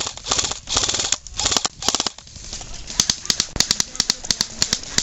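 Airsoft guns firing: several short bursts of rapid clicking shots, then from about three seconds in a quicker run of separate sharp cracks.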